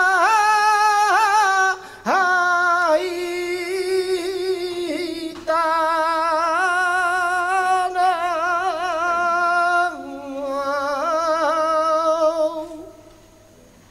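Male flamenco singer singing a toná unaccompanied: long, drawn-out, ornamented phrases that waver in pitch, broken by three short breaths, the last phrase dying away near the end.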